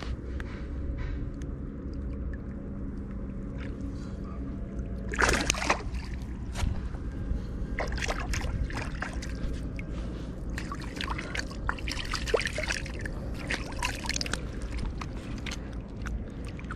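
A hand splashing and sloshing in lake water at the edge of a dock while a small caught fish is let go. There is one sharp splash about five seconds in, then a run of smaller splashes and drips.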